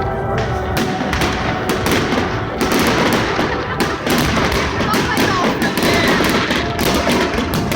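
A fireworks display going off in a dense barrage of sharp bangs and crackles in quick succession, with crowd voices and music underneath.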